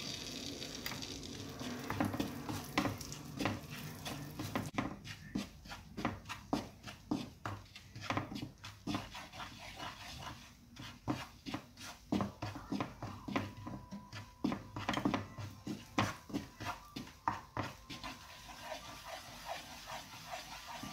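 Butter and jaggery sizzling and bubbling in a nonstick frying pan while a wooden spatula stirs and scrapes it. A steady sizzle thins out after about five seconds, leaving a rapid, irregular run of clicks, taps and scrapes.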